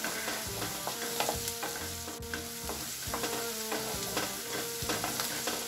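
Chopped onions sizzling in butter in a nonstick pan, stirred by a wooden spatula that scrapes and taps against the pan many times.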